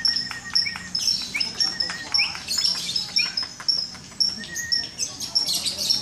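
Several caged lovebirds chirping: a rapid, continuous run of short, sharp, high-pitched chirps with quick rising squeaks in between.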